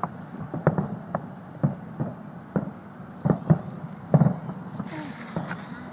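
Fireworks bursting overhead: an irregular string of sharp pops, roughly one or two a second, over a steady background rumble.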